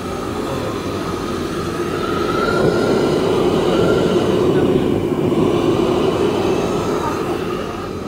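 Commercial gas wok burner roaring steadily under a steaming wok, swelling to its loudest in the middle and easing off near the end.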